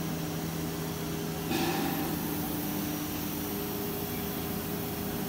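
Holztek CNC nesting router's equipment running: a steady mechanical hum with several held tones, and a brief louder rushing noise about one and a half seconds in.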